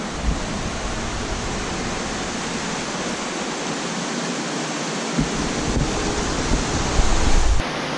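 A steady rushing noise like moving air, with low rumbles on the microphone from about five seconds in that stop abruptly near the end.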